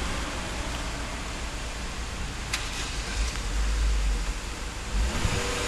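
Car engine running in the street below under a steady hiss, with one sharp click about halfway through. The engine's low rumble grows stronger near the end as the car moves off.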